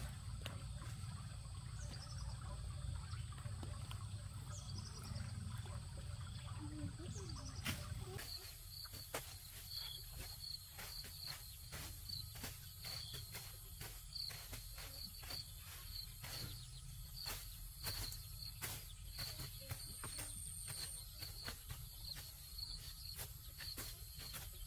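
Insects chirping in a steady run of short high pulses. From about a third of the way in, they are joined by irregular light clicks and knocks. Over the first third a low rumble underlies them.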